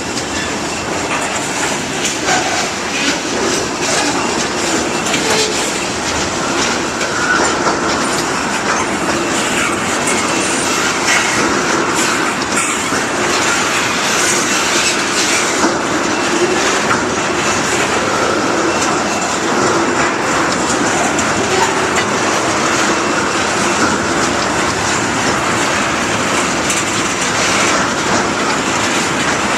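Iowa Interstate Railroad freight train's cars rolling past, a steady loud clatter of steel wheels on the rails.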